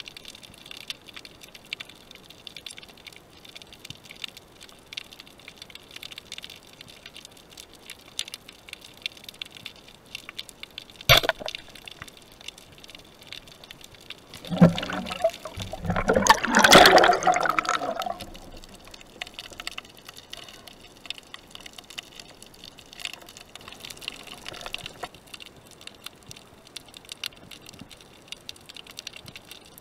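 Underwater water noise through the camera housing: a faint steady crackling hiss, a single sharp knock about a third of the way in, then a few seconds of loud bubbling and gurgling around the middle.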